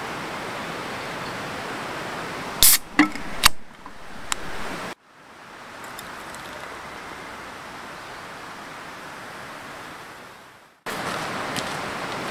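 Steady rushing of a stream, broken by a few sharp clicks and knocks about three seconds in. Then a softer steady hiss of cola pouring from a can into a stainless steel tumbler and fizzing, before the stream noise returns.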